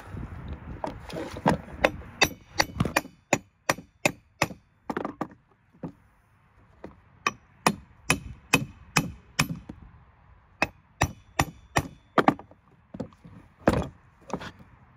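A run of sharp knocks from hand-tool work on a winch mount, coming two to four a second in bursts with short pauses between them.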